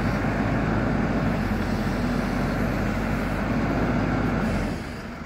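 JCB 4CX backhoe loader's diesel engine running steadily while working. Near the end the sound drops to a noticeably quieter level.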